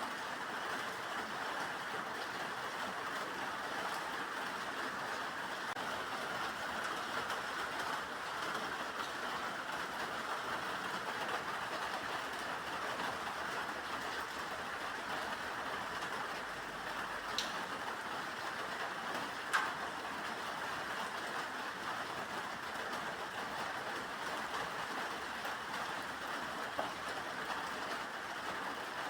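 Steady rain falling, an even unbroken hiss, with a couple of single sharp drop ticks a little past the middle.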